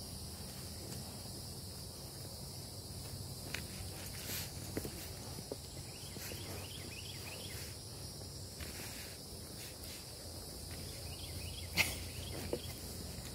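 Soft hoof steps of a horse walking on grass under a steady high buzz of insects, with one sharp click near the end.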